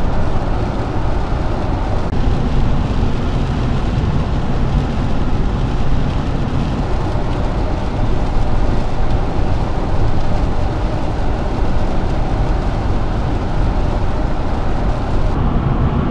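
Steady road noise inside a moving van's cabin at highway speed: a low rumble of engine and tyres under an even hiss. The hiss thins abruptly near the end.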